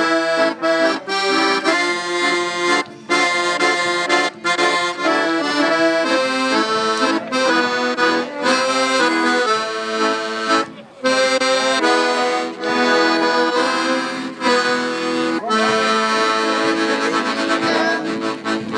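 Live instrumental folk music: a melody over held chords, moving in short rhythmic phrases with a few brief breaks.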